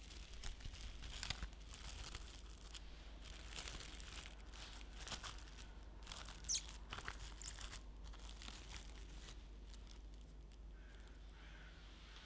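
Plastic cling film crinkling and crackling as it is stretched over a loaf pan and pressed down by hand, in irregular crackles with one sharper crackle about six and a half seconds in, thinning out near the end.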